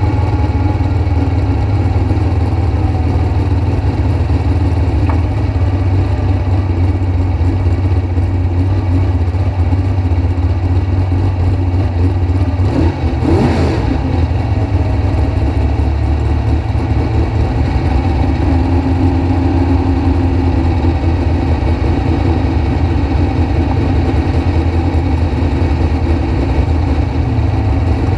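Two-seater dragster's engine idling steadily while the car sits staged, heard from the cockpit, with one short dip and rise in pitch about halfway through.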